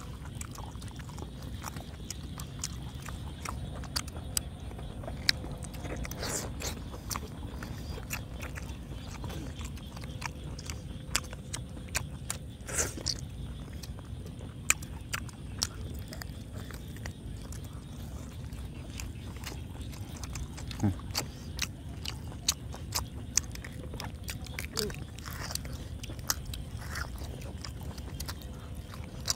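Close-miked eating: people biting, chewing and tearing at boiled pork cheek, with many short sharp mouth clicks scattered throughout over a steady low background hum.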